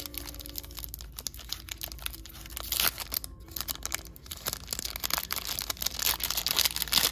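Foil wrapper of a baseball card pack being torn open and crinkled by hand: a run of crackles and rustles, with a short lull about three seconds in.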